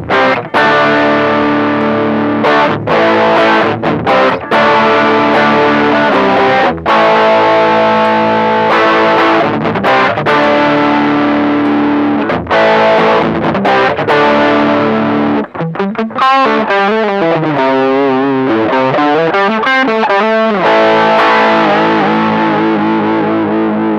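Electric guitar played through a TC Electronic Dark Matter distortion pedal: distorted chords ringing out with short breaks between them. About two-thirds of the way in, the notes waver and bend in pitch for a few seconds before held chords return.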